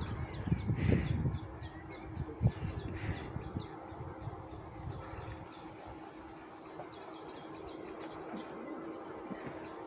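Insects chirping: quick, high, evenly repeated chirps, several a second. A few low thumps come in the first three seconds, and a faint steady low hum runs underneath.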